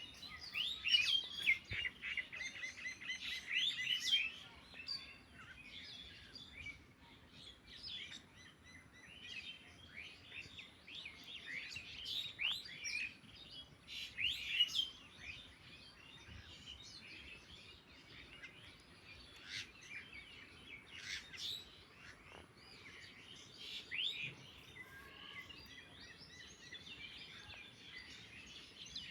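Small birds chirping and twittering in quick, high chirps, busiest in the first four seconds and then in scattered bursts.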